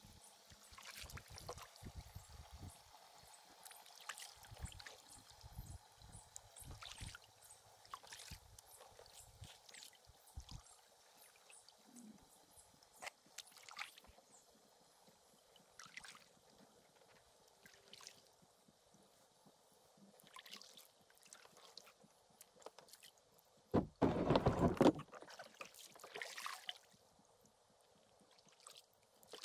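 Kayak paddling: the blades dip and drip water with each stroke, with trickling and small splashes, and the paddle knocks lightly against the hull over the first several seconds. A louder thump, about a second long, comes near the end.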